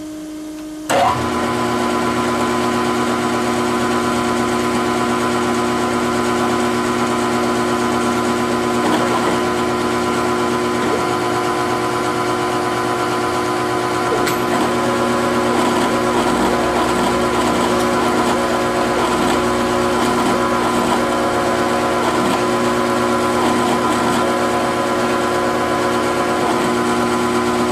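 Grizzly G0705 CNC mill-drill starting up about a second in and then running steadily, a mechanical hum of several steady pitches, as it drills the vertical vacuum port in the clamp billet.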